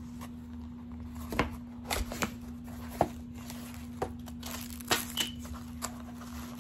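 Small kraft cardboard box being opened by hand: its tuck flaps pulled and folded back, giving irregular scrapes, taps and crinkles, with a few sharper clicks.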